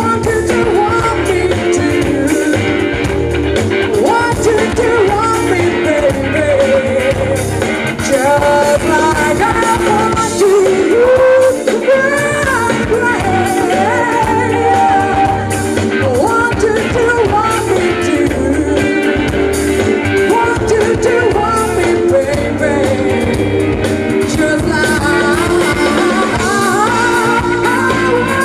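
A female lead vocalist singing an upbeat pop-jazz song live with a full band, drum kit included.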